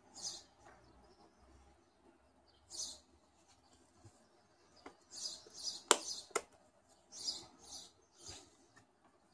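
Hands handling a Sony Alpha camera with a zoom lens: a few short, faint rubbing sounds and, a little past the middle, two sharp clicks about half a second apart.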